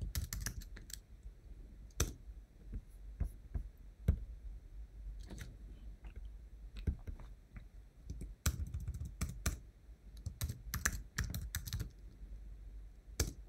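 Typing on a computer keyboard: irregular single keystrokes, then quick runs of key clicks in the second half, with one last keystroke near the end.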